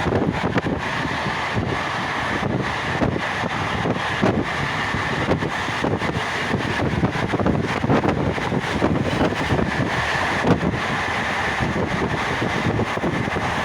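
A moving train running at speed: a steady rumble with dense, irregular rattling and knocking, and wind buffeting the microphone.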